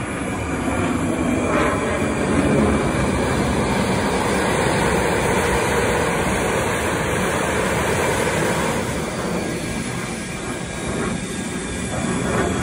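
Saab JAS 39 Gripen C fighter jet in display flight: the steady, broad noise of its single Volvo RM12 turbofan. It dips slightly about ten seconds in and swells again near the end, with a faint high whine slowly falling in pitch.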